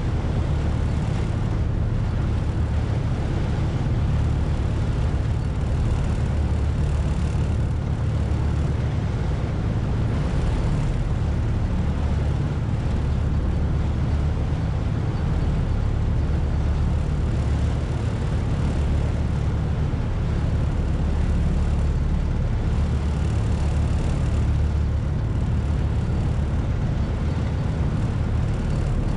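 The George Black ferry's engines running steadily during the river crossing: an even low drone over a steady hiss.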